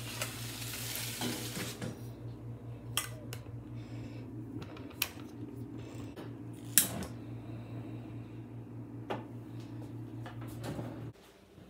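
Kitchen handling sounds: a knife and cutting board scraping, then a few sharp knocks of a metal saucepan and utensils, the loudest about seven seconds in. A steady low hum runs underneath and stops near the end.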